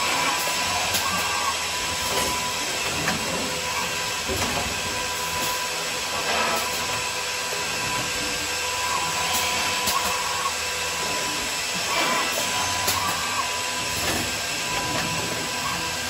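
Morbidelli Powerflex S through-feed drilling machine running: a steady rush of dust-extraction air with a constant whine, broken by irregular clicks and knocks from the drilling heads and panel feed.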